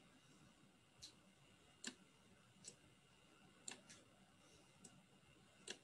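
Faint, scattered clicks of a computer mouse button, about seven at irregular intervals, over near silence.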